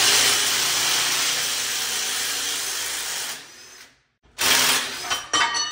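Cordless impact wrench spinning the leaf-spring U-bolt nuts off a Chevy squarebody rear axle. It runs steadily for about three seconds and trails off. After a short pause a second, shorter burst follows.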